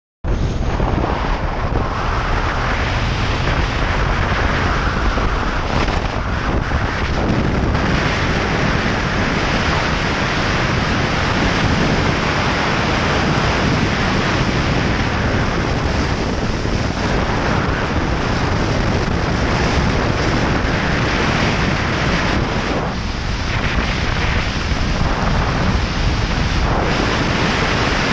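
Loud, steady wind rush over a helmet-mounted camera microphone on a motorcycle moving at road speed.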